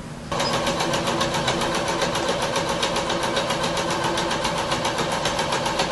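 Electric sewing machine starting abruptly just after the start and then running steadily at speed, a rapid, even clatter of needle strokes as it stitches through thick wool blanket.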